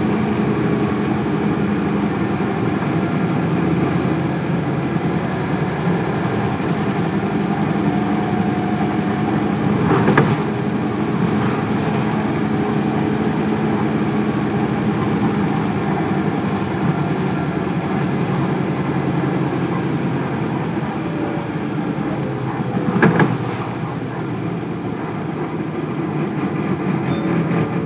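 Isuzu Cubic city bus's 8PE1 V8 diesel engine running steadily, heard from inside the passenger cabin. Two short, louder sharp noises stand out, about ten seconds in and a few seconds before the end.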